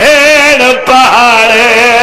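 A man's voice chanting a Shia elegy (zakiri/masaib recitation) in long held, wavering notes into a microphone, with a short break just under a second in.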